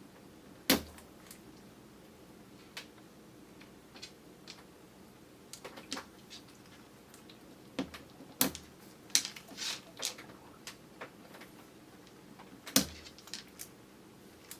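Close-up eating sounds of chewy kyoho grape jelly: scattered wet mouth clicks and smacks, recorded on a camera's built-in microphone. Three much louder knocks with a dull thump cut through, about a second in, a little past halfway and near the end.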